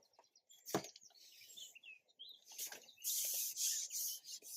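Small birds chirping briefly, with a single knock about a second in. In the second half there is a louder spell of rough rustling.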